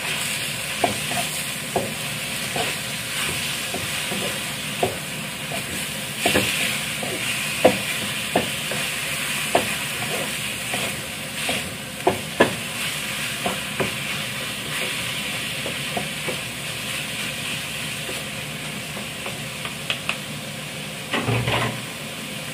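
Marinated pork sizzling in hot oil in a frying pan while a wooden spatula stirs it. The spatula knocks and scrapes against the pan every second or so, with a brief louder clatter near the end.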